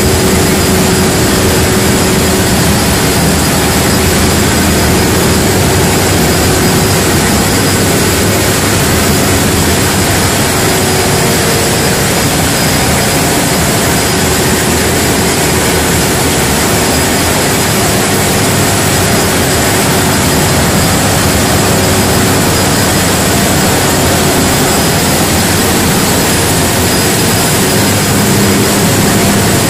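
Large diesel generator sets running under power in a hall, a loud, steady engine drone with a constant hum that does not change.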